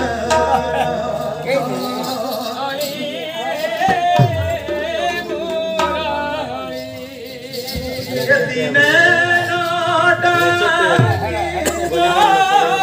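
Live folk song: a male voice sings long, wavering notes, accompanied by a two-headed barrel drum that gives a few deep, booming strokes.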